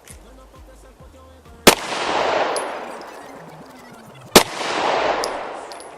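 Two single pistol shots from a Taurus G3 9mm, about two and a half seconds apart. Each sharp crack is followed by a long rolling echo across the range that swells and then dies away over a second or two.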